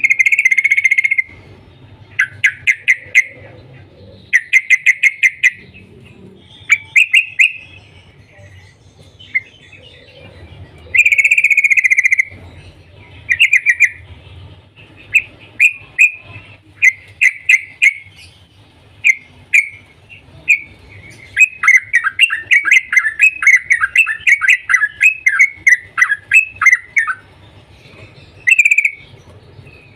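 Caged yellow-vented bulbul singing: short bursts of quick, bubbly chattering notes repeated every second or two, with a longer, denser run of notes about two-thirds of the way through.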